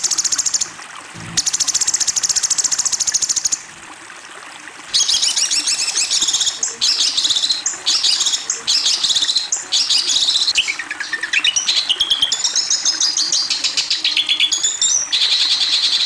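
A songbird singing rapid-fire, harsh trilled phrases high in pitch, in bursts of a few seconds with short pauses between them; in the second half one longer phrase sweeps down in pitch and climbs back up. It is the 'tembakan' (rapid-fire) and 'kasaran' (harsh) kind of song used as masteran tutor material for competition songbirds.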